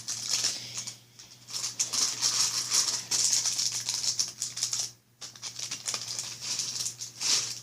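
Fidget spinners and their packaging being handled, giving a dense, irregular rattle that breaks off briefly about a second in and again around five seconds in.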